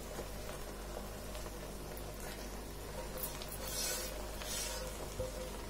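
Faint scrapes and soft clinks of a spoon against cooking pans as chicken tikka in its gravy is spooned onto a layer of rice, over a steady low hum. The scraping comes in a few short strokes in the second half, with a small knock near the end.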